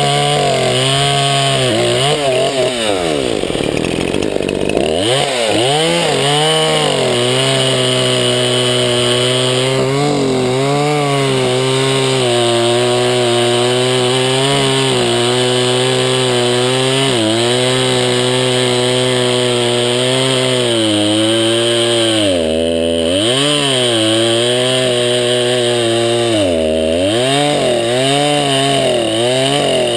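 Craftsman 20-inch 50cc two-stroke chainsaw running hard while bucking a log. Its engine note sags and recovers as the chain loads in the wood, with one deep drop about four seconds in and two shorter ones near the end.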